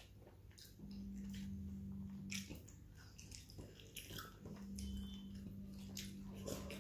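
Close chewing and mouth sounds of people eating rice and fish by hand, with scattered short clicks. A low steady hum drops out and comes back twice.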